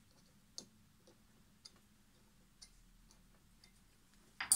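Faint, scattered ticks of a pointed awl scratching and pressing marks into a leather boot sole around a steel toe plate, with a louder sharp click near the end.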